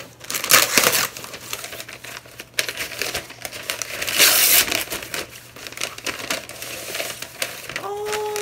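Brown kraft-paper wrapping being torn open and crumpled by hand, with two louder rips, one just under a second in and a longer one about four seconds in.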